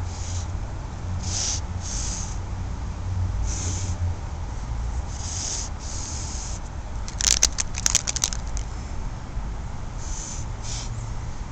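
Felt nib of a squeeze-bottle paint marker dragged across wood in short strokes, each a brief scratchy hiss, while a tag is written. About seven seconds in comes a quick run of sharp clicks.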